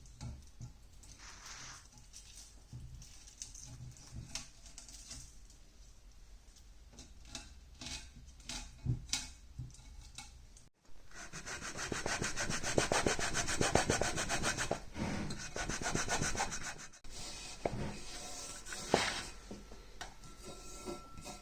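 Hand work on a loudspeaker. Light scattered clicks and handling noise, then several seconds of fast, even rubbing strokes, then more light clicks.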